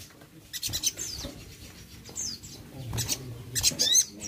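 A sunbird (sogon) giving a run of short, sharp, high chirps, several of them quick falling notes, spaced irregularly and loudest near the end, with a few short clicks between them.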